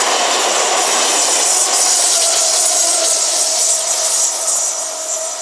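WESTbahn Stadler KISS double-deck electric multiple unit passing close at speed: a loud rush of wheels on rail and air with a steady whine through it, starting to fade near the end as the train pulls away.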